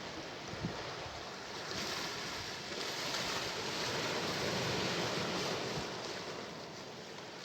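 Sea waves washing ashore, one surge swelling about two seconds in and easing off near the end. A brief low thump comes less than a second in.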